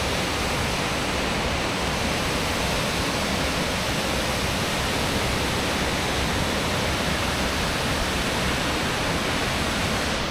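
Waterfall, a steady even rush of falling water.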